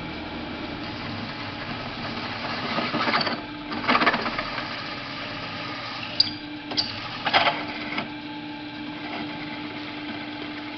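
Drill press running an 11/16-inch twist drill straight into a pipe with no pilot hole: a steady motor hum under the cutting, with louder rough grinding bursts as the bit bites, a few seconds in and again past the middle, and a couple of sharp clicks.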